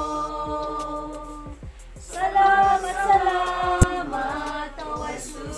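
A small group of people singing a worship hymn a cappella, holding long notes, with a louder phrase beginning about two seconds in. A single sharp click sounds just past the middle.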